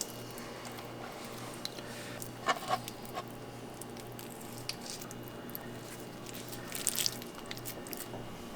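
Soft, wet handling sounds of raw bacon being wrapped around diced chicken by hand, with a few light clicks and taps, over a low steady hum.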